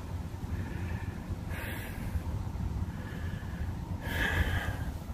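A person's breathing close to the microphone, two audible breaths about one and a half seconds in and near the end, over a low steady rumble.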